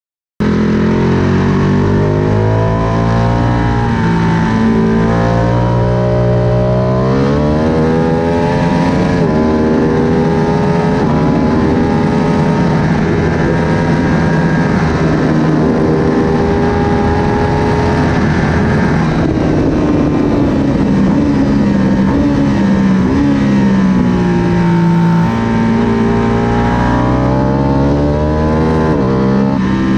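Ducati Panigale 1199S's Superquadro V-twin at full track pace, heard from on board, with wind rush. Its pitch climbs and steps through upshifts, then drops on braking into corners, over and over; the sound cuts in abruptly about half a second in.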